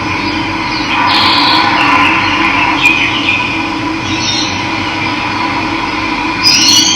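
Steady rush of running water with birds calling over it in short chirps, a rising call near the end.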